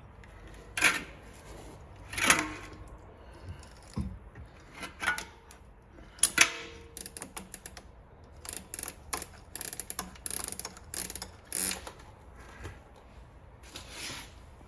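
Bicycle chain and drivetrain parts being handled: irregular metallic clicks and rattles, with a quicker run of clicks partway through.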